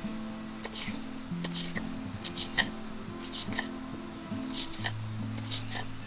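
A kitchen knife slicing a red chili on a wooden cutting board, a string of short, irregular cuts with one sharper tap about two and a half seconds in. Under it runs a steady high insect drone and soft background music of slow low notes.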